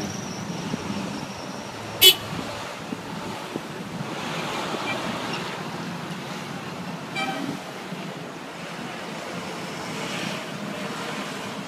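Steady street traffic noise, with a short, sharp car horn toot about two seconds in and a fainter short pitched tone around seven seconds.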